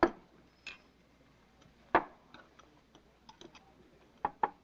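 Glass sundae dish set down on a counter with a sharp clink, then metal split-hook prosthetic hands tapping and clicking against the glass and a spoon. There is a loud knock about 2 s in and a quick pair near the end, with lighter ticks between.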